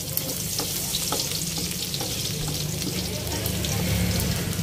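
Minced garlic sizzling and crackling in hot oil in a wok beside browned pork, with a spatula scraping and stirring through it toward the end, the frying growing louder.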